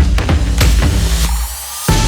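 Electronic background music with heavy bass and a steady drum beat; a rising sweep builds over a short drop-out of the bass in the second half before the beat hits again near the end.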